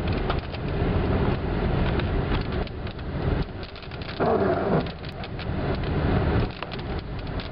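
Inside a moving car on the highway: steady road and engine rumble with many quick ticks of raindrops striking the windshield and roof as a storm begins. A short falling tone cuts through about four seconds in.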